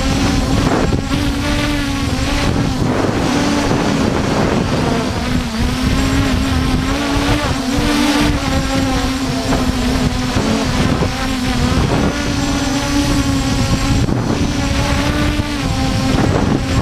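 Force1 F100 quadcopter's motors and propellers whining steadily, the pitch wavering slightly up and down as the throttle shifts, with wind buffeting the microphone underneath.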